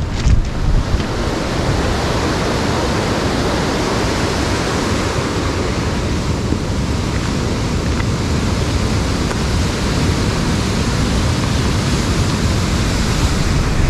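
Fast-flowing mountain stream or cascade rushing steadily, an even roar of white water with no breaks.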